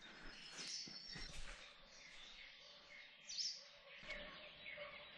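Quiet outdoor background with small birds chirping faintly, including a quick high falling chirp a little past the middle.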